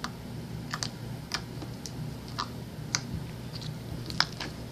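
Sticky jelly slime being kneaded together with bouncy putty by hand, giving scattered small clicks and pops at an uneven pace, the loudest a little past four seconds in.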